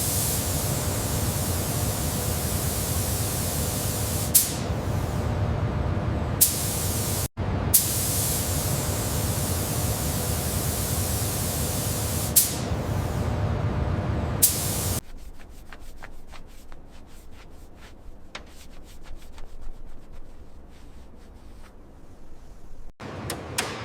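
A spray gun hissing steadily, with a few sharp clicks and a brief break in the middle. About fifteen seconds in it stops, and a quieter crackly scratching follows.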